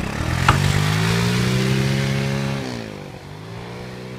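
Small motor-scooter engine driving a motorised kick-sled, revving up with its pitch rising for about two seconds, then dropping back and running on steadily and quieter as the sled pulls away.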